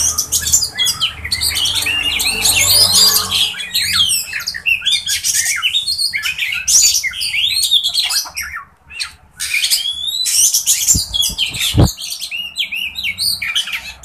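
Caged oriental magpie-robins singing and chattering: a dense run of quick, varied whistled and scratchy notes, with a short pause about eight and a half seconds in.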